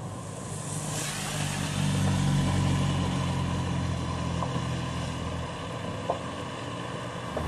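Vehicle engines running on a wet road, with a steady hiss of rain and tyres over the low engine hum; the hum and hiss swell about a second in.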